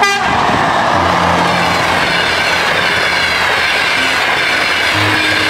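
A train passing at speed, wheels rolling and clattering over the rails in a loud, steady rush. The tail of a horn blast cuts off at the very start.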